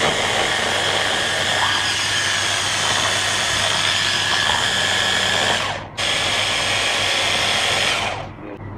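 Hand blender's motor running at speed on its chopper bowl attachment, chopping garlic cloves and butter. It cuts out for an instant about six seconds in, runs on, then spins down near the end.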